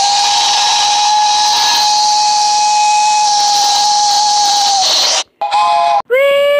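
Steam locomotive whistle blown in one long, steady blast of about five seconds over a hiss of escaping steam, cut off sharply. After a short gap a brief whistle note sounds, then a lower-pitched whistle starts near the end.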